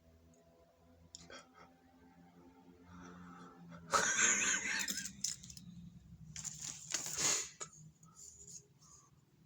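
A person's loud sneeze: a short build-up of breath, then the sneeze bursts out about four seconds in, and a second loud burst follows about three seconds later.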